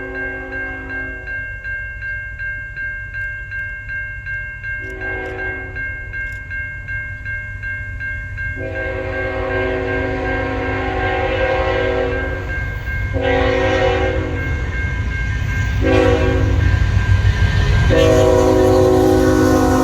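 Approaching train's locomotive horn sounding a series of long and short blasts over a bell ringing steadily, with the rumble of the train growing louder from about halfway through.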